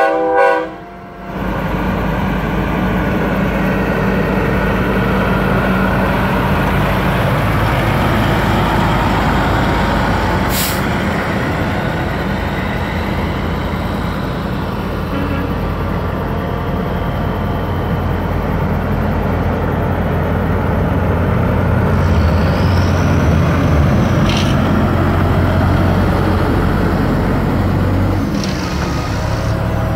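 Semi-truck diesel engines rumbling as a line of trucks rolls by, with the cut-off end of a loud multi-tone air horn blast right at the start. The engine and tyre noise swells late on as a tractor-trailer passes close, and two short sharp clicks sound along the way, one about a third of the way in and one near the end of the swell.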